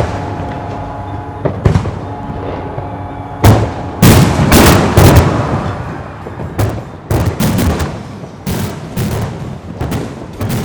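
Aerial fireworks going off in an irregular series of sharp bangs and crackling, thickest about four to five seconds in, then coming in clusters of quick reports toward the end.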